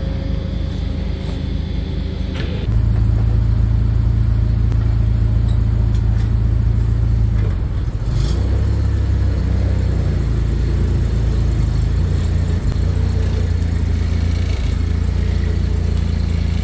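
Large truck engine running under load with a steady low drone. It grows louder about three seconds in, then dips briefly and changes pitch around eight seconds.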